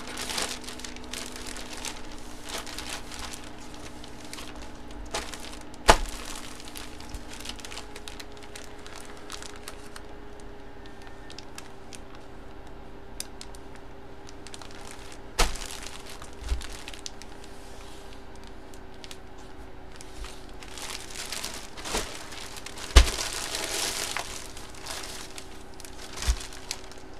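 Plastic card sleeves and packaging being handled close up, crinkling, with several sharp taps or clicks as items are set down, over a faint steady hum.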